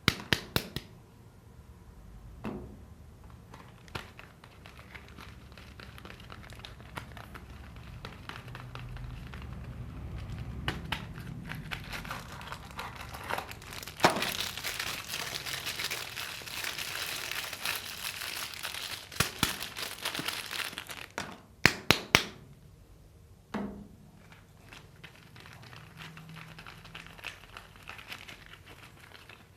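Soap bar wrapper crinkling and tearing as it is opened by hand. The crinkling is densest in the middle, with a few sharp snaps a little past two-thirds through.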